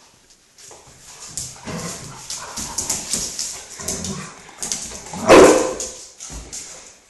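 Two dogs, a galgo and a Rhodesian Ridgeback, play-fighting: whining and scuffling on a tile floor, with one loud bark about five seconds in.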